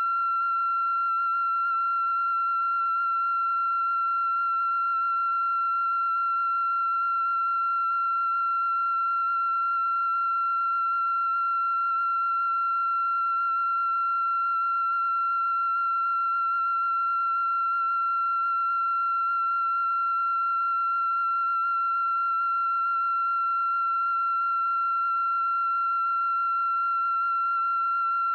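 A steady, high electronic tone held at one pitch without any change, with fainter overtones above it.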